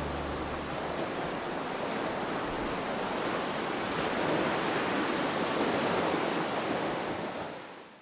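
Ocean surf, a steady rush of breaking waves, fading out near the end. The last low notes of music die away in the first second.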